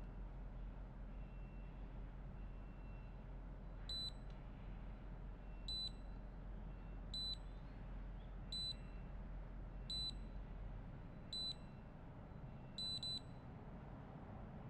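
Fingerprint sensor of an electronic cabinet lock beeping as it is tapped: six short high-pitched beeps about a second and a half apart, then a quick double beep as the sensor's ring light turns green to confirm the six-tap sequence.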